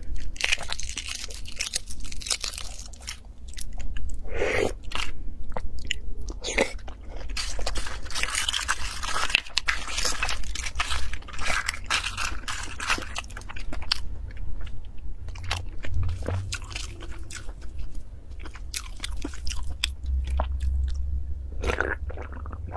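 Close-miked crackling of brown boiled-egg shells being cracked and peeled by hand, mixed with biting and crunchy chewing, in many short sharp clicks and crackles.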